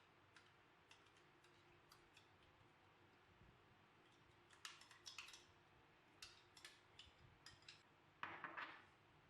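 Faint, scattered clicks and clinks of kitchen utensils being handled, bunched into a few quick clusters in the second half.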